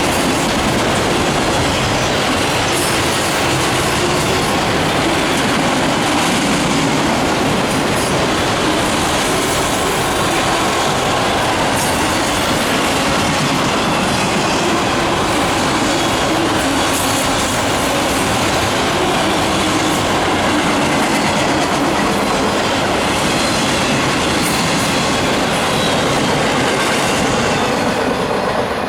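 Intermodal and autorack freight cars rolling past close by: a steady, loud rumble of steel wheels on rail, with the clickety-clack of wheels over rail joints.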